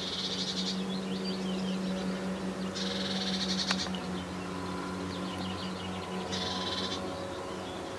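Birds singing and calling: many short chirps, and a rapid buzzing trill about a second long that comes three times, a few seconds apart. A steady low hum runs underneath.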